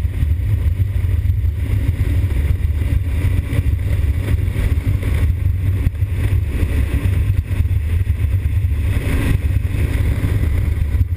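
A 2020 Honda Africa Twin's 1084 cc parallel-twin engine running steadily at cruising speed, under a heavy, steady wind rumble on the microphone.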